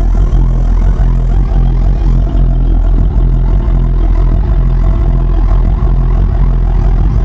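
Loud live dubstep bass music over a concert sound system, dominated by a heavy, steady sub-bass with a dense wash of sound above it.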